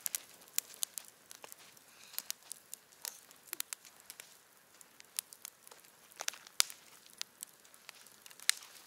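Brushwood campfire crackling, with irregular sharp snaps and pops, a few louder ones standing out.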